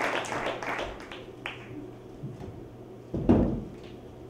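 Audience applause dying away, then a single dull thump about three seconds in.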